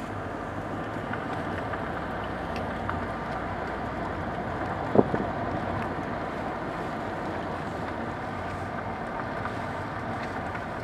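A steady rushing noise, wind-like, with one sharp hit about five seconds in.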